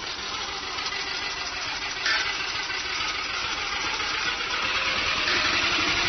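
Yamaha golf cart driving off, its motor and tyres on pavement making a steady noisy running sound that jumps up about two seconds in and keeps getting slightly louder.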